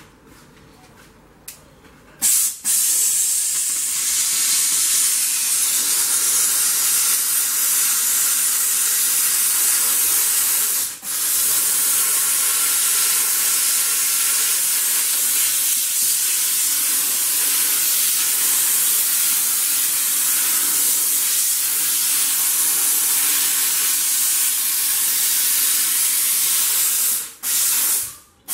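Sauber Brilliance steam cleaner jetting steam: a loud, steady hiss that starts about two seconds in. It breaks off briefly around the middle and again near the end as the steam trigger is let go.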